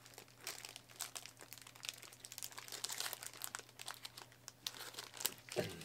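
Thin plastic pastry wrapper crinkling in the hands around a cream Danish as it is bitten and chewed: many quick, irregular crackles.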